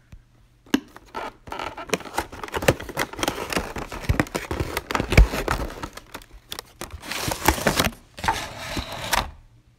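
Hands opening a Gemini Jets diecast model box: cardboard packaging rustling and scraping, with scattered clicks and a dull thump about five seconds in.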